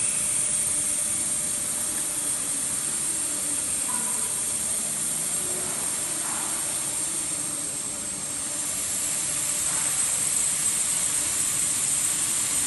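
Nitrogen hissing steadily through a freshly brazed copper pipe: the post-brazing purge that keeps the inside of the pipe free of scale. The hiss grows a little brighter about eight seconds in.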